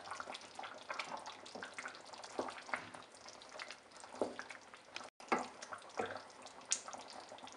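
Chicken in a thin yogurt gravy simmering in a steel pot, bubbling and popping irregularly while a wooden spoon stirs through it. The sound cuts out for an instant about five seconds in.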